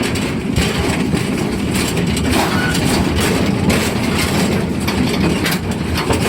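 Narrow-gauge forest railway train under way behind the Amamiya No. 21 steam locomotive: a steady rumble and rattle of the cars rolling on the track.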